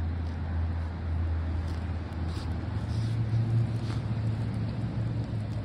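A steady low engine drone that rises slightly in pitch about two and a half seconds in.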